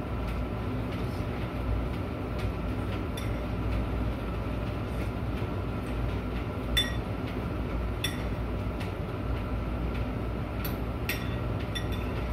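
A spoon clinking against a porcelain soup bowl several times, each tap ringing briefly, over a steady low hum.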